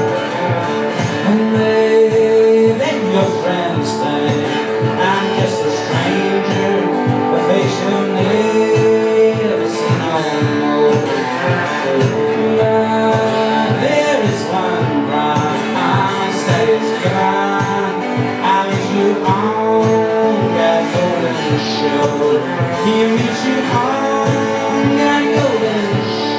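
Guitar music with a voice singing over it, playing without a break.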